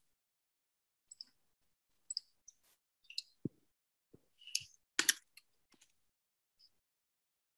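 Typing on a computer keyboard: a dozen or so irregular key clicks, with the loudest cluster about five seconds in.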